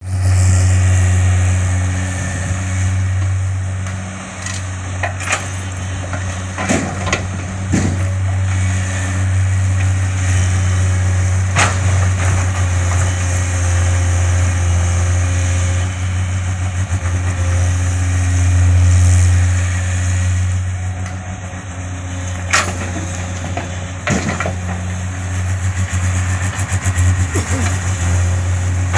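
Tata Hitachi EX110 excavator's diesel engine running steadily with a strong low hum, with a few sharp knocks now and then.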